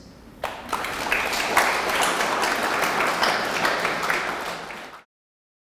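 Audience applauding, starting about half a second in, then cut off suddenly near the end.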